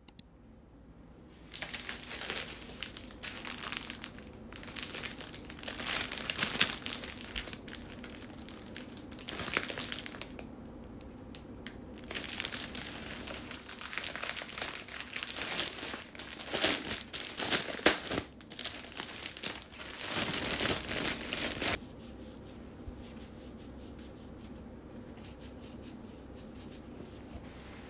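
Clear plastic packaging bag crinkling and rustling in irregular bursts as the storage stool inside is handled and pulled out. The crinkling stops about three quarters of the way through, leaving a faint steady hiss.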